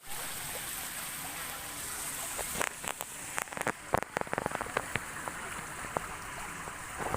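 Park water fountain splashing: a steady hiss of falling water, with many sharp, irregular splashes or drips through the middle.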